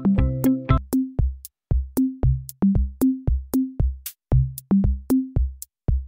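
Background music: an electronic beat of drum-machine kick and sharp hi-hat hits with a bass line. Held keyboard chords drop out about a second in, leaving only the drums and bass.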